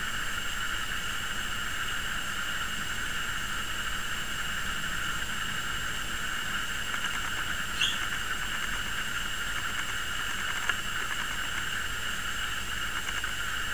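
Steady electronic hiss, unchanging throughout, with a brief high chirp about eight seconds in and a faint click or two.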